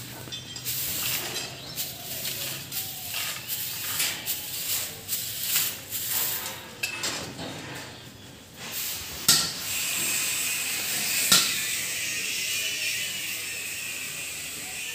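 Footsteps and scuffs on a dirt floor with knocks from handling the camera, then from about ten seconds in a steady hiss broken by two sharp knocks.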